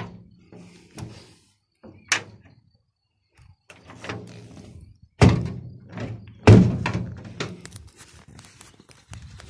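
A series of hollow metallic thunks: a hand knocking on the old fire truck's sheet-metal body panels, each knock ringing briefly. The loudest two come about five and six and a half seconds in.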